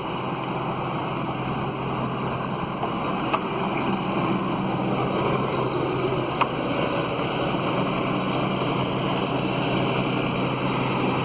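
Magnet excavator's engine running steadily, a constant low drone, with two faint clicks about three and six seconds in.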